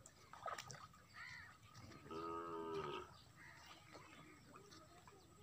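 A cow lowing once for about a second near the middle, with a crow cawing shortly before it and small birds chirping around it.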